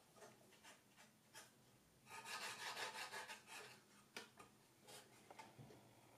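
Faint rubbing and scraping of wood on wood as a small wooden part is pressed and worked into place between the frames of a wooden model-ship hull. A denser scraping stretch of about a second and a half starts around two seconds in, with a few light clicks and taps around it.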